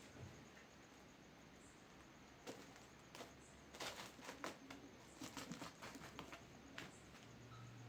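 Faint, scattered light taps and scuffles, most of them in a run of quick clicks a few seconds in, as cats play and scamper over a hard floor.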